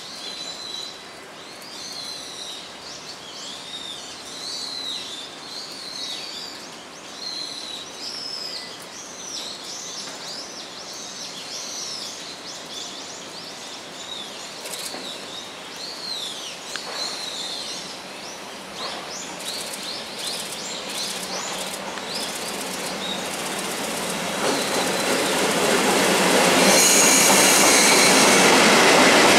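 Freight train of two EF64 electric locomotives and tank wagons running slowly into a station siding: the wheels squeal in wavering high tones as they take the curve through the points. Over the last few seconds the noise of the locomotives and wheels clattering over rail joints grows loud as they pass close by.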